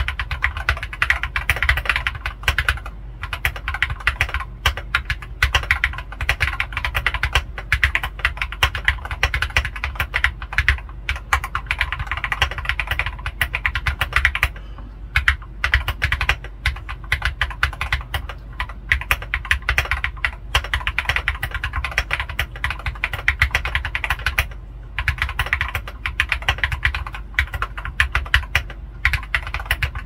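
Steady typing on a modded Keychron K6 mechanical keyboard with Feker Matcha switches and Akko Wave ASA keycaps, its case dampened with a silicone pour and PE foam: a dense run of keystrokes broken by a few short pauses, the longest about halfway through.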